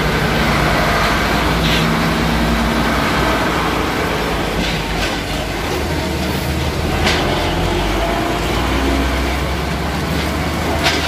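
Nissan Diesel 220PS turbo diesel truck with trailer running steadily as it drives slowly past, with a few short clicks from the rig.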